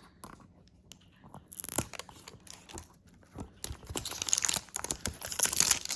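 Plastic wrapping being peeled and torn off a Poké Ball tin, crackling and crinkling in fits and starts, denser and louder over the second half.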